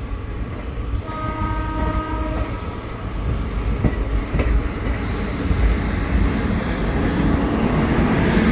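A train horn sounds once, about a second in, for roughly a second and a half, over the steady rumble and clatter of a running train, which grows a little louder toward the end.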